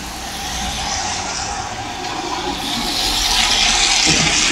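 Tyres hissing on a wet road as cars pass close by, over the low rumble of a fire truck's engine. The hiss swells and grows louder about halfway through.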